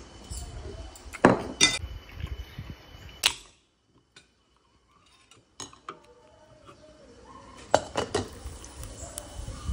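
Clinks and knocks of tableware on a wooden table, an aluminium soda can being opened, and cola poured over ice cubes in a mug, the ice clinking sharply twice near the end.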